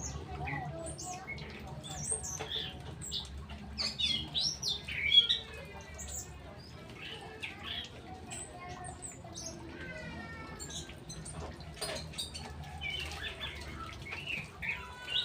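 Several songbirds chirping and calling, with quick falling runs of notes about five and ten seconds in and again near the end. A sharp chirp about five seconds in is the loudest.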